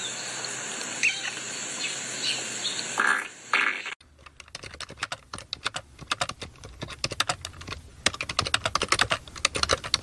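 A spluttering fart noise with two louder blasts about three seconds in, then from about four seconds on the fast, irregular clicking of a computer keyboard being typed on.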